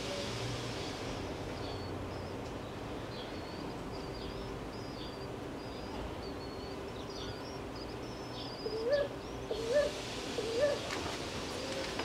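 Small birds chirping with short, high, repeated notes, then a ground dove cooing: three louder low rising coos a little under a second apart, about three-quarters of the way through, followed by softer coos. A faint steady hum sits underneath.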